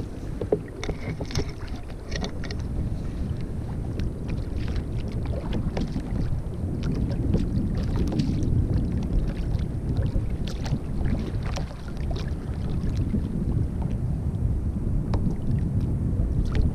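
Wind buffeting the microphone over a steady low rumble, with scattered light clicks and small water slaps against a kayak.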